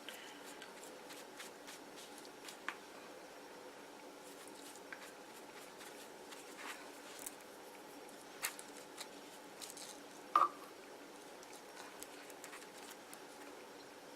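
Faint handling sounds of hands molding glue-soaked cotton on a paper mache model: scattered small clicks and soft taps over a steady low hum, with one brief louder sound about ten seconds in.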